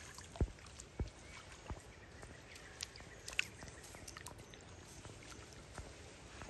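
Monkeys moving in swimming-pool water: a few short, sharp splashes and knocks about a second apart, then fainter scattered ones over a low background hush.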